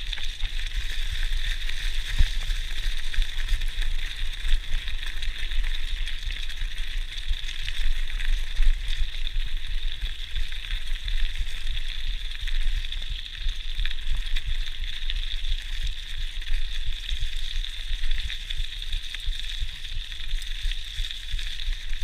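Mountain bike rolling along a gravel track strewn with fallen leaves: a steady crackling hiss from the tyres on grit and leaves over a constant low rumble, with occasional small knocks as the bike goes over bumps.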